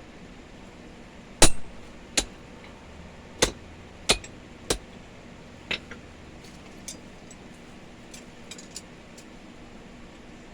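Hammer blows on a steel hole punch, driving it into the workpiece on an anvil: about six sharp metal strikes at uneven spacing, the first the loudest. They are followed by a few faint light clinks of steel.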